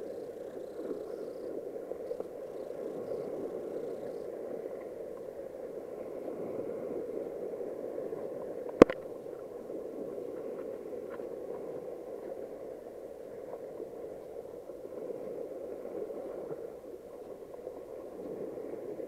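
Muffled, steady wash of small sea waves over shoreline rocks, with one sharp knock about nine seconds in.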